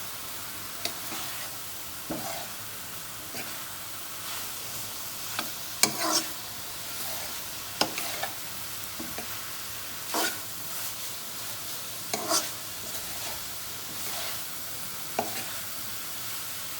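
Chicken filling frying in oil in a pan with a steady sizzle while it is stirred; the stirring utensil scrapes and knocks against the pan every second or two.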